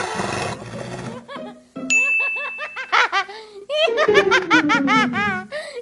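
Cartoonish high-pitched giggling in quick runs of rising-and-falling squeaks, over a music track, with a bell-like ding about two seconds in.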